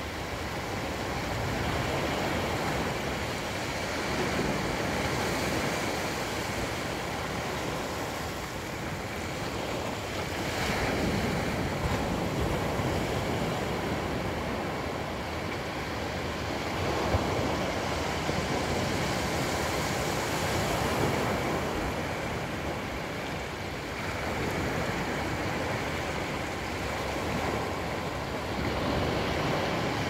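Small ocean waves breaking and washing up a flat sandy beach: a steady rush of surf that swells and eases every few seconds.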